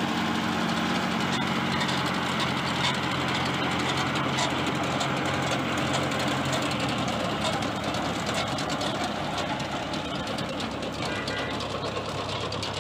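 Tractor diesel engine running as it pulls a garlic and onion digger through the soil, over the clatter of the digger's belt-driven shaking grid and rod elevator sifting soil and bulbs. A steady engine hum is plain for the first half, then gives way to denser rattling.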